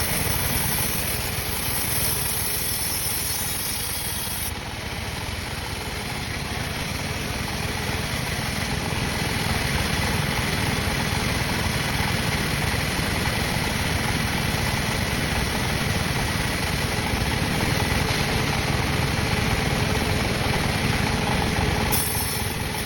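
Sawmill saw machinery running steadily, an engine-like noise that holds without a break.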